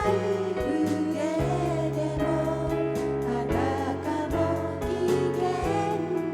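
Christian worship song: voices singing over a steady instrumental accompaniment with a regular beat.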